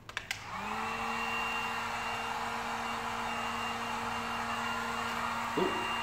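Electric heat gun switched on with a click, its fan spinning up within about half a second and then blowing steadily. It is used to heat and soften vinyl wrap film.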